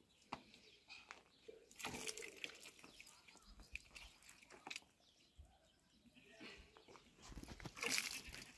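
Faint sounds of hands being washed with water poured from a plastic jug: scattered small wet clicks of palms rubbing, with short splashes about two seconds in and near the end.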